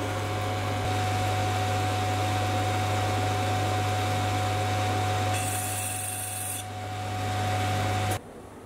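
Sieg C3 mini metal lathe running steadily with a low hum and a thin steady whine. A brief hiss comes a little past halfway, and the running sound stops abruptly near the end.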